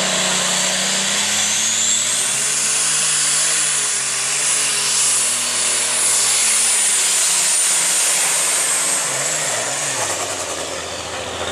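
Open Super Stock pulling tractor's turbocharged diesel engine running flat out under load as it drags the sled, loud and steady. A high whine from the turbochargers climbs about a second and a half in, holds, then tails off near the end as the engine eases.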